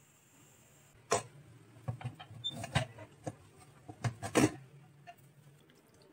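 A string of sharp clinks and knocks of stainless-steel cookware being handled, such as a pressure cooker lid and a strainer, starting about a second in and loudest near the middle, over a faint low hum.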